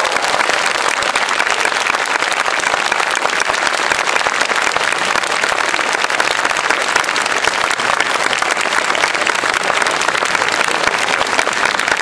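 A large audience applauding steadily after a band's song ends, hundreds of people clapping.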